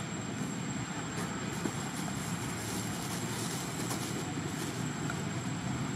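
Steady outdoor background rumble with a thin, constant high-pitched whine over it and a few faint ticks.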